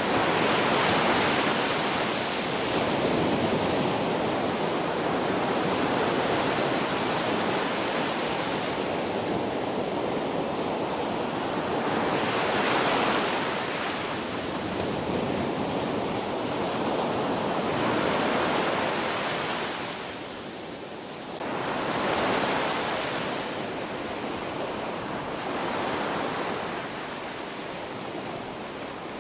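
Ocean waves breaking on a beach: a continuous rush of surf that swells with each breaking wave every few seconds and briefly eases about twenty seconds in.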